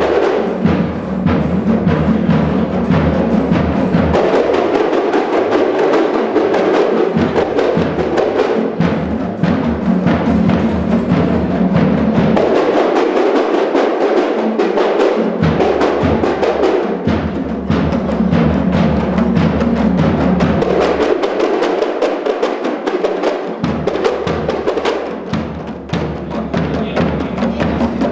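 Drum-led percussion music, a dense, steady run of drum strokes, accompanying the bride and groom's entrance procession.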